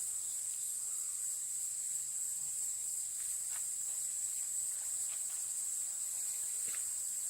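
A steady, high-pitched chorus of insects, unchanging throughout, with faint footsteps crunching now and then.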